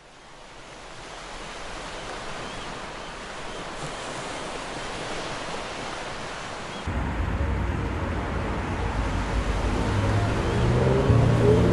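Added soundtrack: a rushing, surf-like noise swells in from silence. About seven seconds in, a deep bass rumble comes in suddenly, and rising tones build near the end.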